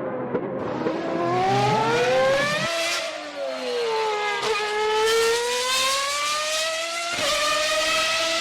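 Formula 1 racing car engine at high revs, its high-pitched whine climbing, dipping and climbing again, with abrupt jumps in the sound about three and seven seconds in.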